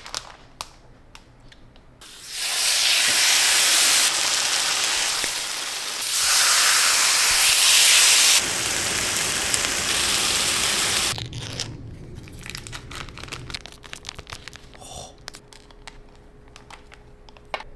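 Kitchen tap water running hard into a sink or pot. The hiss goes on for about nine seconds with sudden jumps in level, then gives way to scattered light clicks and knocks of kitchenware.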